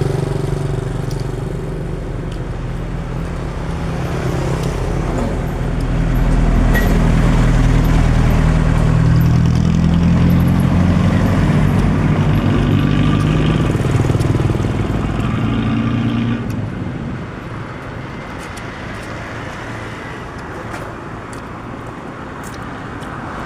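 A motor vehicle engine running steadily, growing louder about six seconds in and dropping away after about sixteen seconds.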